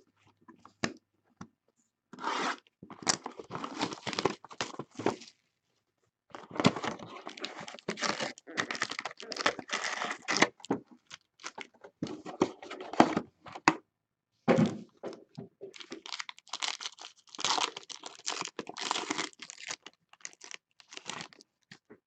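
Trading card packaging being torn open and handled: tearing and crinkling of wrapper and cardboard in three stretches, broken by short pauses about a second in, near the middle and past the two-thirds mark.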